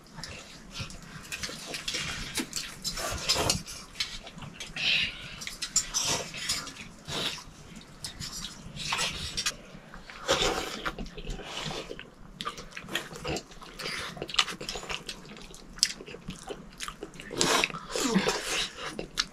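A person eating noodles from a steel bowl with a spoon: irregular slurps and chewing, with the spoon knocking and scraping against the bowl.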